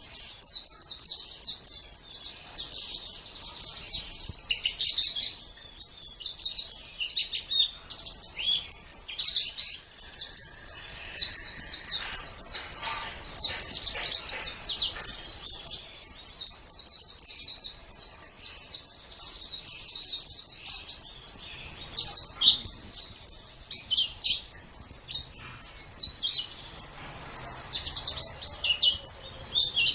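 White-eye (pleci) singing: a long, rapid, unbroken chatter of high, quick chirps and short trills.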